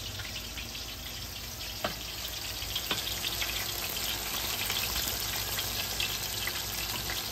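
Pieces of battered butterfish deep-frying in a large pot of hot oil, giving a steady crackling sizzle. Two faint clicks come about two and three seconds in.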